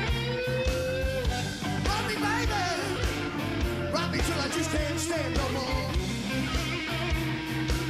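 Rock song playing as background music, with a steady drum beat and guitar.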